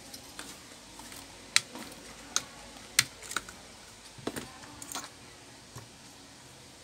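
Sharp plastic clicks as a desktop RAM module is unlatched and pulled from its motherboard memory slot. There are about seven separate clicks over several seconds, two of them louder than the rest.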